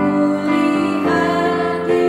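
Women singing a children's worship song together in Indonesian, over keyboard accompaniment.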